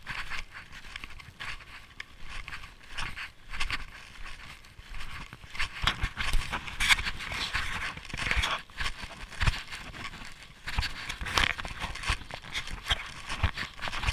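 Snowshoe footsteps crunching in snow at a walking pace, one crunch after another with a dull thump under each.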